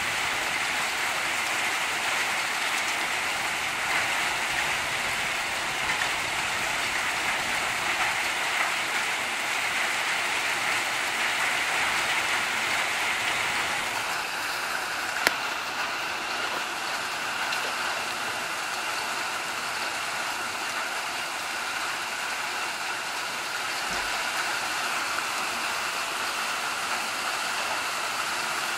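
Heavy rain mixed with small hail pouring down in a storm: a steady hiss of the downpour, with a few scattered ticks and one sharp click about halfway through.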